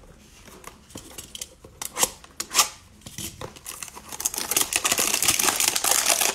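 Cardboard trading-card hanger boxes knocked and shifted against each other on a table, a few separate clicks and taps. From about four seconds in, a continuous crackling and crinkling as a 2021 Panini Playoff football hanger box's packaging is torn open.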